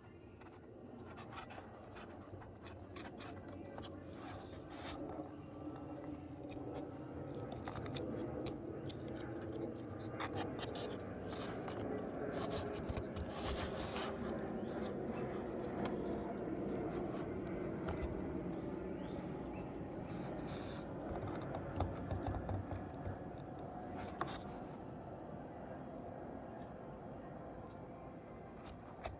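Blade scraping and cutting into wood during hand carving: a continuous rasping with scattered sharp clicks and snaps.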